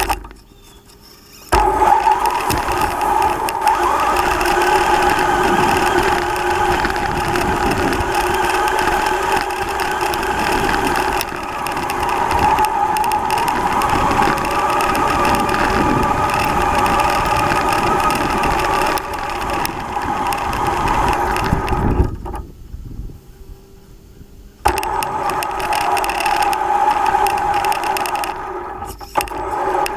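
Traxxas Slash Ultimate RC truck driving: the brushless electric motor and geared drivetrain whine steadily over tyre noise and chassis rattle. The sound drops away briefly at the start and again for a couple of seconds past two-thirds through.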